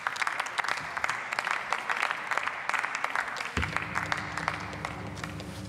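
Members of parliament applauding, dense clapping that thins out toward the end. About two-thirds of the way in, a low steady hum sets in suddenly.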